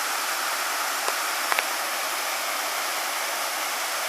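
Steady rush of a waterfall pouring into a pool, with two faint clicks about a second and a half in.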